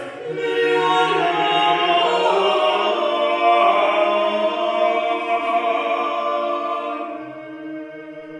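Three voices, a woman and two men, singing a Hebrew liturgical song a cappella in close harmony, ending on a long held chord that fades out near the end. The voices ring with the echo of a stairwell.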